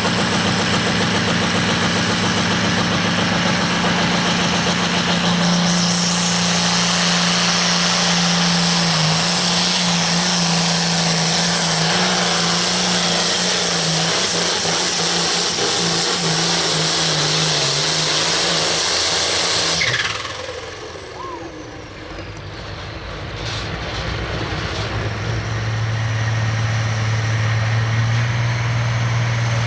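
Turbocharged International Harvester pulling tractor's diesel engine running hard under full load during a pull. The engine grows harsher and higher about six seconds in, then cuts off about twenty seconds in with a falling whine. A few seconds later a second tractor engine idles at a lower pitch.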